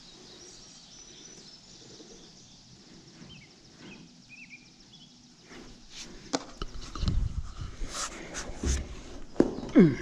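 A few faint bird chirps over quiet background, then, from about halfway in, knocks, thumps and rustling from a person moving and climbing down off a tractor cab roof, with a short falling squeak near the end.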